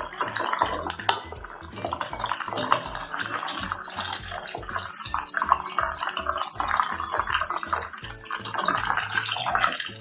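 Prawns deep-frying in hot oil in a kadai: a steady sizzle and crackle of the oil, with a few clinks of a metal utensil.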